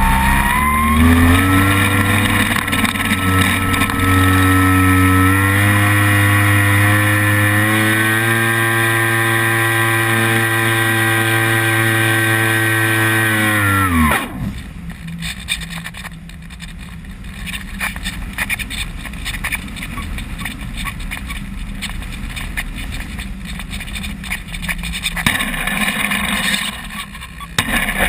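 Electric motor of a radio-controlled model plane whining at full power, its pitch rising in steps, then winding down and cutting out abruptly about halfway through; the uploader says the motor burned out in flight. After the cutout only wind rushes over the plane-mounted camera as it glides.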